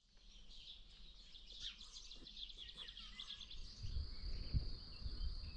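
Small birds chirping in quick high notes, then from a bit past halfway a steady high insect trill takes over, with low rumbles underneath.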